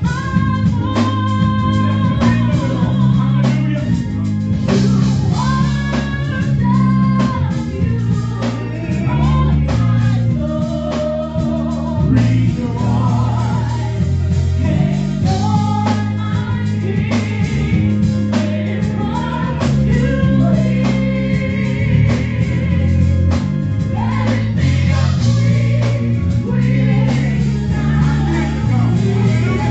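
Gospel music with singing over bass, guitar and a steady beat.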